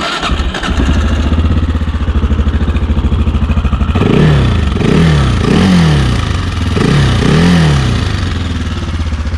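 AJP PR7's single-cylinder thumper engine starting, settling into a steady idle, then given several short throttle blips that rise and fall in pitch in the middle before it drops back to idle.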